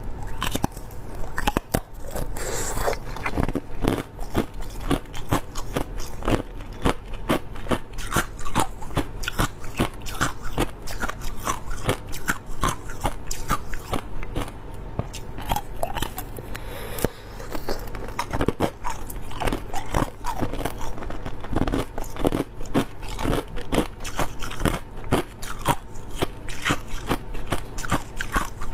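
Crushed clear ice being bitten and chewed close to the microphone: a continuous run of sharp, irregular crunches and cracks, several a second.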